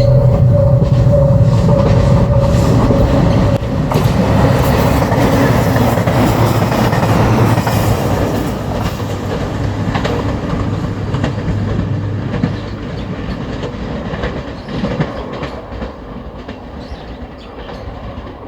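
A JR Shikoku 2700 series limited express diesel train passes over a level crossing, its diesel engines running and its wheels clacking over the rail joints. The passing noise fades over the second half. The crossing's warning bell rings in a steady pulsing tone for the first few seconds.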